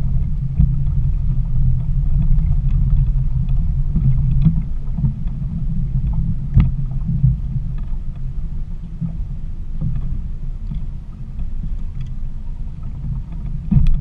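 Bass boat's outboard motor idling, a steady low rumble, with a few sharp knocks on the hull or deck.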